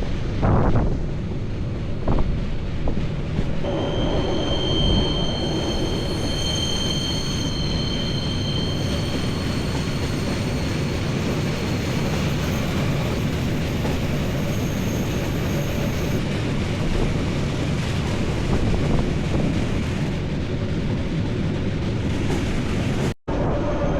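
Rail vehicle running with a steady rumble, its wheels squealing in high tones for several seconds in the first half.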